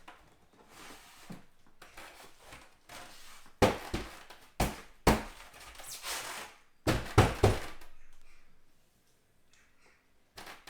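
Insulation-board window adaptor being pushed and knocked into a window frame: a run of thunks and knocks in the middle, with the board scraping against the frame between them. It is a stiff fit that still needs a push.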